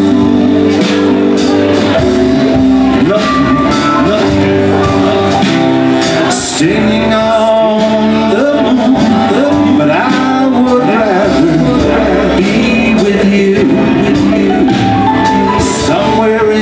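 Live band music: acoustic guitar, electric bass and keyboard, with a saxophone playing a line over them.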